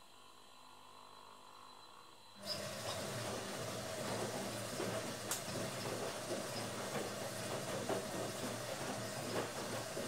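Automatic washing machine during a load: a faint hum, then about two and a half seconds in a louder rushing, churning sound starts abruptly, with a steady tone through it and light irregular clicks and knocks.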